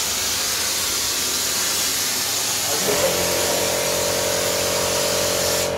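Foam tank spray gun spraying pressurised foam: a steady hiss that cuts off sharply near the end. About halfway through, a steady mechanical hum joins in and keeps going.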